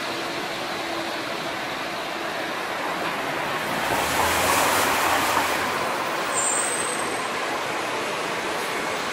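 Street traffic: a steady wash of passing vehicles, with one vehicle passing close and louder, with a low rumble, about four to five seconds in. A brief high-pitched squeal sounds a couple of seconds later.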